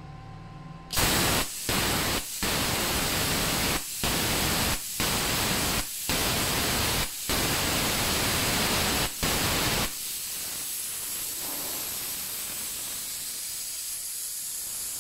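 Plasma cutter torch, a Weldinger AG60 pilot-arc torch on a Parkside plasma cutter converted to pilot arc, firing its pilot arc in open air: a loud hiss of arc and compressed air, broken by several brief dropouts. About ten seconds in the arc stops and a quieter steady hiss of post-flow air carries on.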